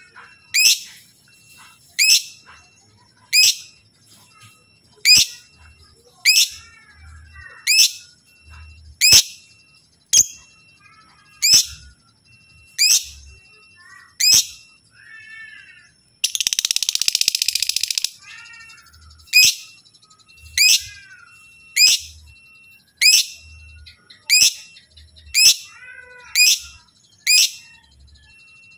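Lovebird giving loud, short, sharp chirps, one about every second, with softer chattering calls between them. About halfway through comes a harsh, noisy burst lasting nearly two seconds.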